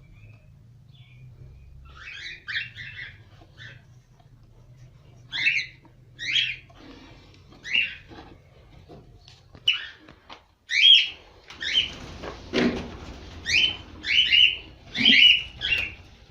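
Cockatiels calling: a series of short, shrill chirps that start about two seconds in and come thicker and louder in the second half, some in quick pairs.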